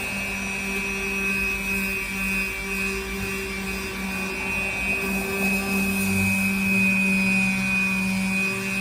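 Electric sander running steadily while sanding with 80-grit paper: a constant low motor hum with a high whine over it, swelling slightly in loudness late on.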